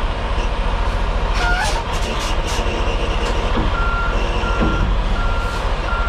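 Truck reversing alarm beeping about once every 0.7 seconds, starting about four seconds in, over a truck engine running steadily.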